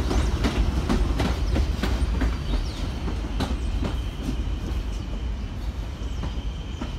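R42 subway train running away along elevated track, its wheels clacking over rail joints over a low rumble, fading as it goes. About halfway through, a faint steady high whine sets in.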